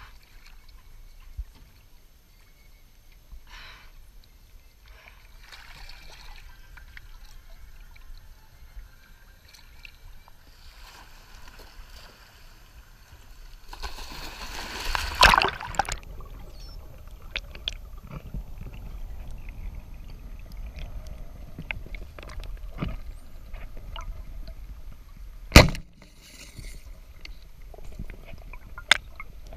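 Sea water sloshing and splashing at the surface, loudest about halfway through, with scattered small clicks and a single sharp knock near the end.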